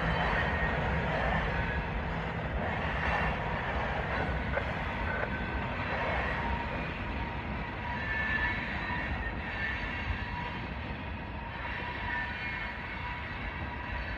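Union Pacific freight train of tank cars rolling along the track: a steady rumble of wheels on rail that slowly grows fainter.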